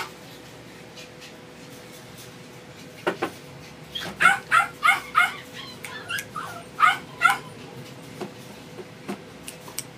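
A dog whimpering and yipping: a run of about eight short, high calls from about four seconds in, after a couple of sharp knocks.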